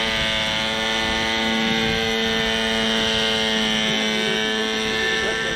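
Hirobo Shuttle radio-controlled helicopter's small two-stroke glow engine and rotor running at a steady pitch in flight. The engine sounds sluggish and won't rev up freely, which the owner puts down to a carburettor mixture that comes out either too rich or too lean.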